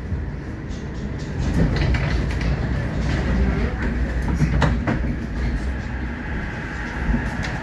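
Moderus Alfa HF07DC tram in motion: a steady low rumble of the running gear, with a few sharp clacks of the wheels on the track.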